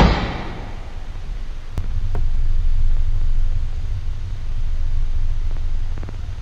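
A heavy thud at the very start, its ring fading over about a second, then a steady low rumble with a few faint clicks: a dark, ominous ambience.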